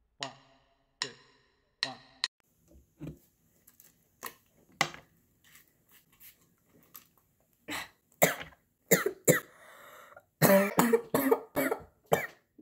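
A girl coughing in a series of short, sharp bursts, louder and closer together near the end.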